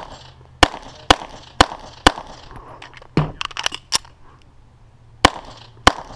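Pistol shots in a quick string: four about half a second apart, then a pause filled with a few lighter clicks and knocks, then two more shots about half a second apart near the end.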